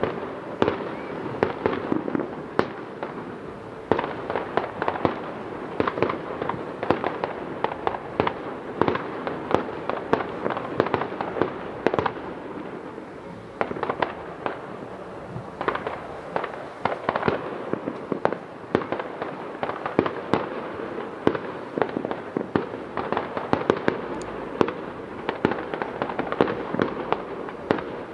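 Aerial fireworks shells bursting in quick succession: a dense, continuous run of sharp bangs and crackles, several each second, easing briefly midway.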